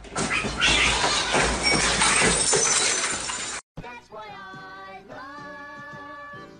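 A loud crashing clatter, like objects knocked over and breaking, lasting about three and a half seconds and cutting off abruptly. It is followed by music with a held sung melody.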